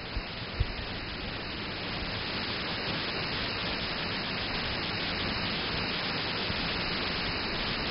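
Waterfall rushing, a steady, dense hiss of falling water that grows slightly louder over the first few seconds.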